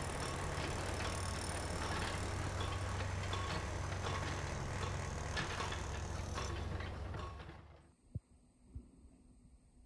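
Repair-shop noise under a car on a lift: a steady mechanical hum with scattered clicks and rattles. It fades out about eight seconds in, leaving only faint quiet and a couple of soft knocks.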